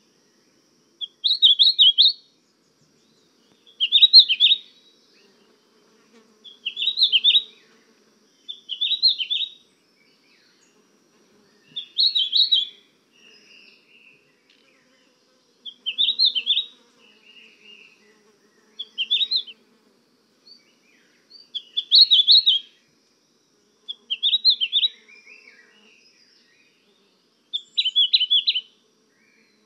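A songbird singing short phrases of rapid chirping notes, about ten phrases each roughly a second long, one every two to three seconds.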